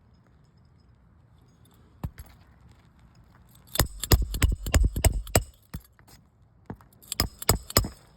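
Sharp clicks and clinks in two quick clusters: a run of them about four seconds in, then another near the end, with a single click before.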